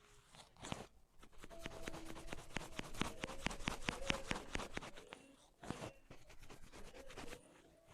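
Hair cracking massage: strands of hair gripped and rubbed or tugged between the fingers, giving a rapid run of sharp crackling snaps that starts about a second in and thins out after about five seconds.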